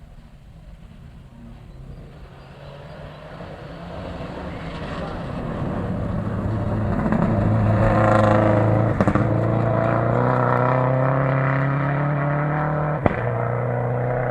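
Rally car engine approaching and growing steadily louder, then running hard at high revs with its note climbing as it accelerates. There is a brief break about 9 s in, as at a gear change, and a single sharp crack near the end.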